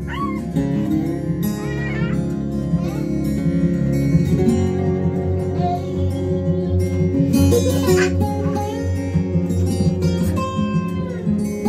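Music with plucked guitar playing steadily through a pair of bookshelf hi-fi speakers driven by a small Class D amplifier.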